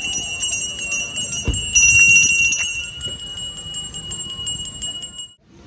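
Puja hand bell rung rapidly and continuously during a temple vehicle-blessing ritual, with a louder stretch about two seconds in; the ringing cuts off suddenly near the end.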